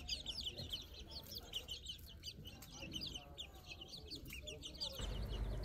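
A flock of young chicks peeping: a rapid, continuous stream of short, high, falling cheeps that stops about five seconds in.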